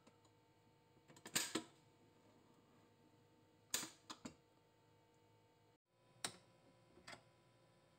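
Short plastic and metal clicks and clunks from a Kenwood Major Titanium stand mixer being handled with its motor off: the clear splash guard taken off and the tilt head raised to lift the whisk out of the bowl. They come in a few small clusters: one about a second and a half in, three in quick succession around four seconds, and two more near the end, with quiet between.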